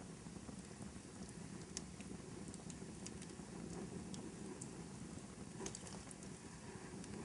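Wood fire crackling in a fireplace: a steady low rush of flames with scattered sharp pops and snaps.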